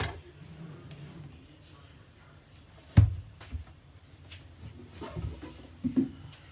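Rigid cardboard phone packaging handled on a table: a sharp knock about three seconds in as a box is set down, a second lighter knock just after, then a few softer taps and rubs near the end as the sleeve is moved aside.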